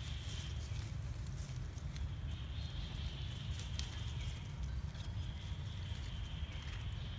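Outdoor ambience: a steady low rumble, a thin high-pitched buzz that comes and goes in stretches of a couple of seconds, and a few faint clicks.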